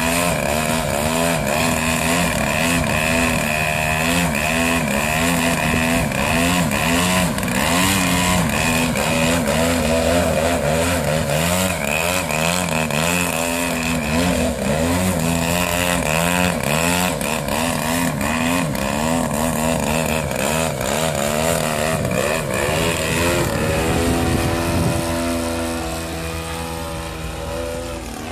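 60cc DLE gas engine of a radio-controlled Yak 54 aerobatic plane running hard, its pitch wavering up and down quickly with the throttle. About three-quarters of the way through, the pitch slides down and the engine grows quieter.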